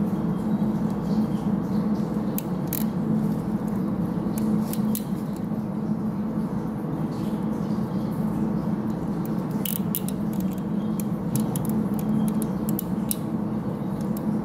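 Small metallic clicks and taps of washers, nuts and ring-lug terminals being handled and fitted onto the terminal studs of an electric motor's terminal block, over a steady machinery hum.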